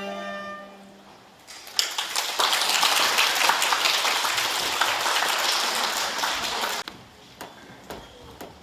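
The orchestra's last held string note dies away, then the audience claps for about five seconds and stops abruptly. A few small taps follow.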